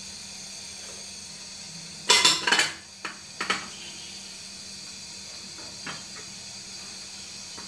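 Metal utensils clattering against an aluminium cooking pot about two seconds in, with a second, shorter clink about a second later and a few faint taps after, over a steady background hiss.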